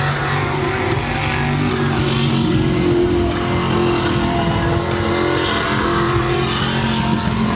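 V8 jet sprint boat engine running at high revs as the boat races through the course, with music playing over it.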